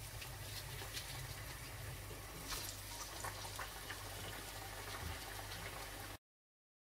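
Potato-coated boiled eggs deep-frying in hot oil: a steady sizzle and bubbling with scattered small crackles. The sound cuts off suddenly near the end.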